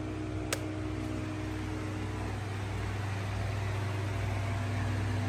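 Steady low hum with an even hiss, and a single sharp click about half a second in.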